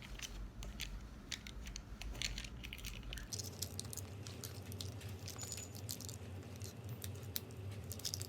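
A person chewing fast food close to the microphone: soft, irregular mouth clicks and smacks.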